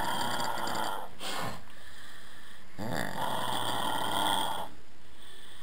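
A person snoring in their sleep: two long, rasping snores, one ending about a second in and the next starting about three seconds in.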